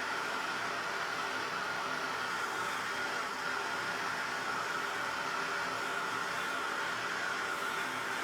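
Handheld gas soldering torch burning with a steady hiss, heating copper pipe fittings to sweat-solder the joints.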